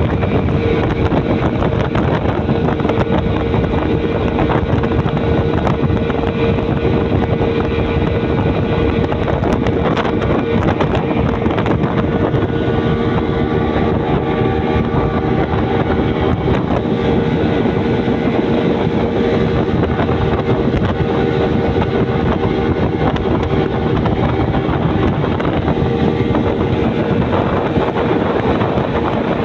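Speedboat engine running steadily at speed: a constant hum over a loud, unbroken rush of noise.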